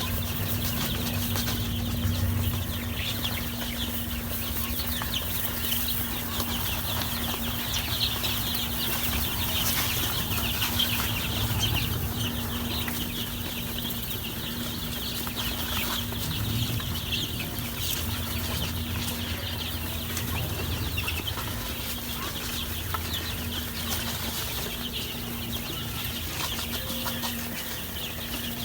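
A brood of week-old chicks peeping continuously, many high chirps overlapping, over a steady low hum.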